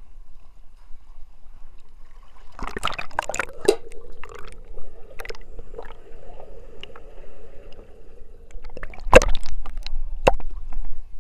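Water splashing and gurgling against an action camera's waterproof housing as it dips under a swimming pool's surface, about three seconds in. While submerged there is a steady hum and a scatter of sharp knocks, the loudest about nine seconds in, and then more splashing as the camera comes back up near the end.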